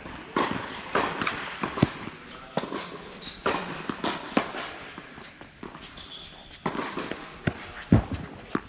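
Tennis balls being struck by racquets and bouncing on an indoor court: sharp, echoing pops at irregular intervals, with two short high squeaks.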